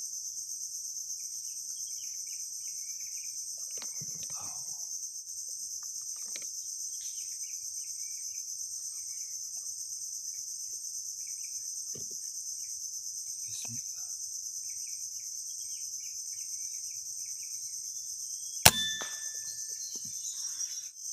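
Steady high-pitched chorus of crickets and other insects with faint scattered chirps and a few soft knocks. Near the end comes a single loud, sharp crack, a shot from an air rifle.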